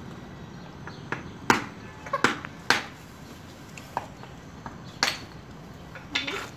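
A series of about eight sharp, irregular taps and knocks, spread over several seconds, over a low steady background.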